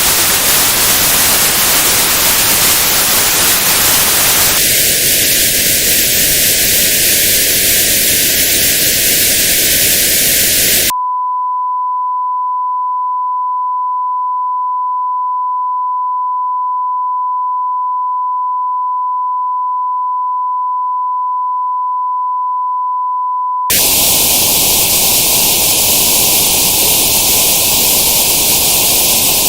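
Tinnitus-matching test signals: plain white noise hiss, then about four seconds in the same hiss with a band around 1,000 hertz notched out, then about eleven seconds in a steady pure 1,000 hertz tone, and near the end white noise notched one step higher, around 1,500 hertz.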